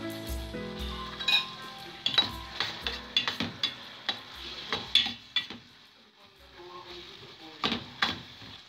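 A utensil scraping and clinking against a stainless steel pan as tomatoes, onions and garlic are stirred frying in oil, over a low sizzle. The clinks come irregularly, with a quieter pause past the middle and a louder cluster near the end.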